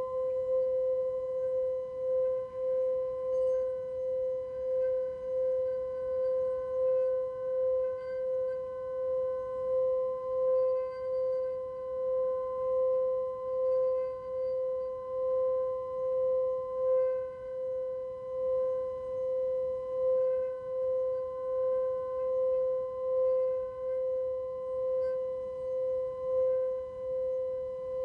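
Tibetan singing bowl sounding a steady, sustained tone with higher overtones above it, its loudness swelling and fading in a slow pulse about once a second or so.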